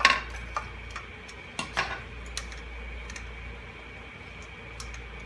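A utensil knocking and clinking against a dish as food is mixed by hand: a sharp clack at the start, two lighter knocks a little under two seconds in, then a click and a few faint ticks.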